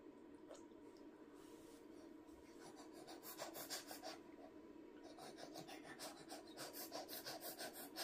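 Faint, soft eating noises of a baby being spoon-fed puree: small wet clicks and scrapes of the spoon and her mouth, starting about two and a half seconds in and coming several times a second toward the end.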